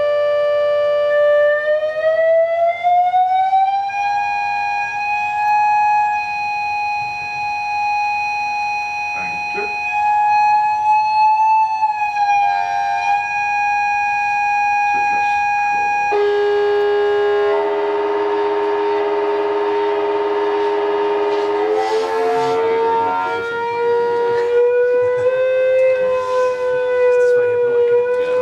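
Chladni plate driven by a signal generator through an amplifier, sounding a loud electronic tone as the frequency is swept in search of standing-wave resonances. The pitch slides up about two seconds in and holds, then drops suddenly about halfway through to a lower, buzzier tone that creeps slowly upward.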